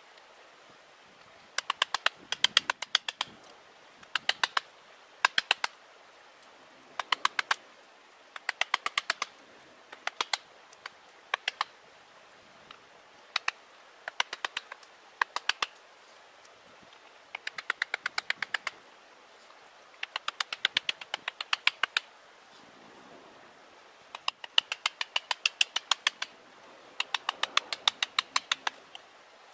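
Wooden carver's mallet tapping a chisel into the wood of a living tree trunk: bursts of quick, light, sharp taps, about a second each, with short pauses between bursts.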